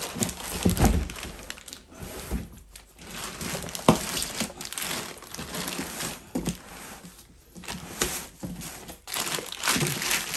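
Clear plastic wrapping on a packed inverter crinkling and rustling in irregular bursts as it is handled, with cardboard packing shifting in the box. A sharp tap about four seconds in.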